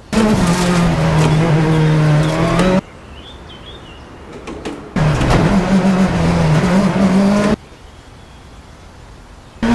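Air-cooled flat-four engine of a vintage VW Beetle revved and held at a high, steady pitch twice, each time for about two and a half seconds, cutting off sharply. Between the two revs there is a much quieter stretch.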